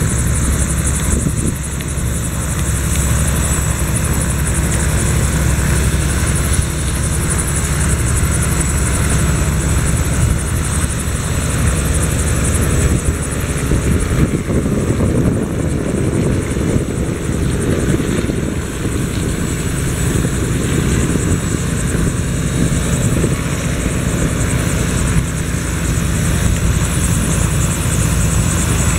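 Helicopters running on the ground and flying close by: steady engine and rotor noise with a fast regular beat of the blades and a high whine, the sound changing about halfway through as the scene shifts to other aircraft.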